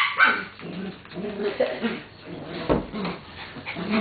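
Small dogs at play, making scattered short dog noises, with a couple of sharp knocks from the tussle, one about two thirds of the way in and one near the end.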